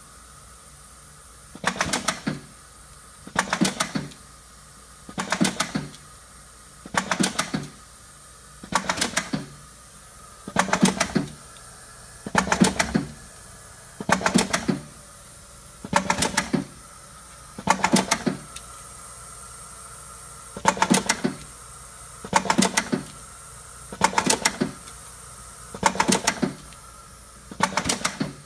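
Axon EZ-100 shrink-sleeve applicator running through its cycle: a short burst of rapid mechanical clicking and clattering about every two seconds, over a steady machine hum.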